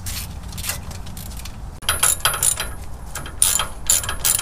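Hand ratchets clicking in quick bursts as two wrenches back out the 12 mm bolts holding the brake hard line brackets to the differential. The clicking gets louder and busier about two seconds in.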